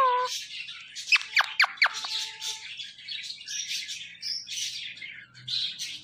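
Indian ringneck parrot calling: four quick, sharply falling whistles about a second in, among short raspy chattering squawks.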